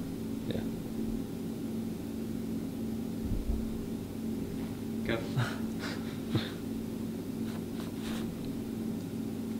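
Steady low electrical hum, with a few faint, brief scratchy strokes of a ballpoint pen writing on notebook paper about five to six and a half seconds in.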